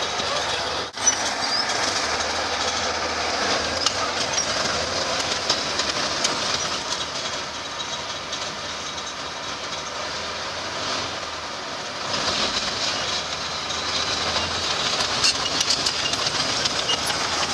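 Replica Panther tank driving, its steel tracks clattering continuously over its engine running. There is a brief drop and a sharp knock about a second in.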